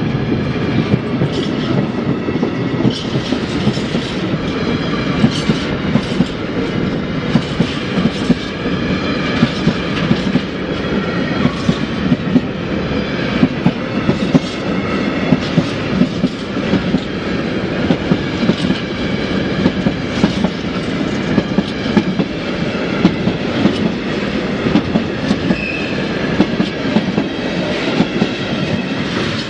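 Freight train of rail tank wagons rolling past close by: a steady loud rumble with the wheels clicking over the rail joints in a repeating rhythm, and a short high squeal near the end.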